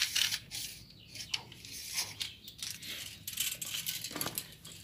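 Handling noise: irregular small clicks, taps and rustles over a faint low hum.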